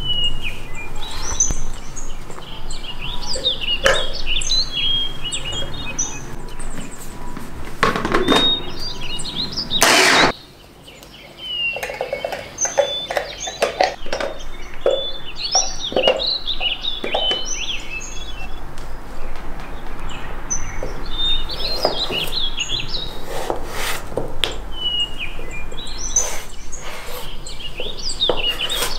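Small birds chirping in short repeated phrases, over kitchen handling sounds: knocks and clatters from a plastic food-processor bowl and a spatula scraping riced cauliflower out of it. The sound drops away briefly about ten seconds in, and a knife starts chopping on a wooden board near the end.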